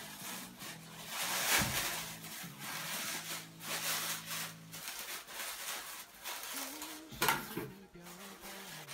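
Clear plastic and bubble-wrap packaging crinkling and rustling as it is handled and peeled off, with a sharper crackle about seven seconds in.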